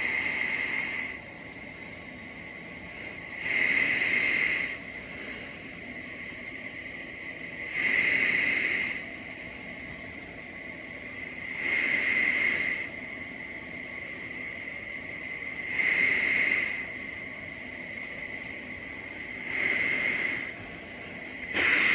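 ResMed AirMini CPAP running at 18 cm H2O with a nasal pillows mask: a steady high whine under an airflow hiss. The hiss swells for about a second roughly every four seconds, six times in all, in time with the wearer's breaths.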